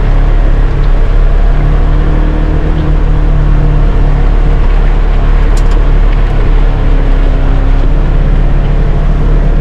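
Polaris Ranger XP 1000 Northstar side-by-side's twin-cylinder engine running steadily at low trail speed, heard from inside its closed cab, with the pitch shifting a little as the throttle changes.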